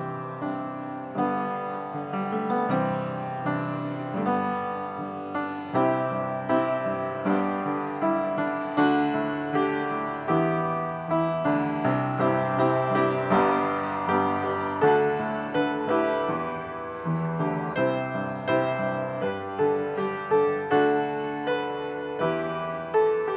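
Solo upright piano playing a piece of chords and melody, each note struck and left to fade.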